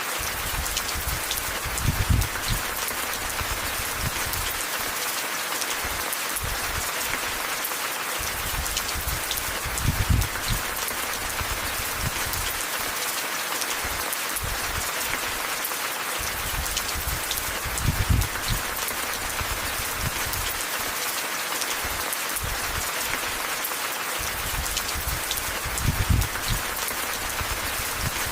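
Steady rain falling, an even hiss with scattered drop ticks. A brief low thump or rumble comes about every eight seconds.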